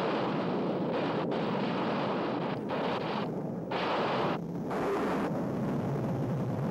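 Jet noise of Northrop F-5 fighters in flight: a steady, loud rushing noise that changes abruptly in tone several times.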